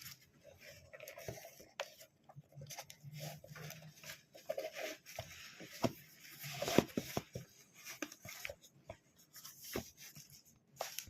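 Faint, irregular handling noises: scattered light clicks, taps and rubbing.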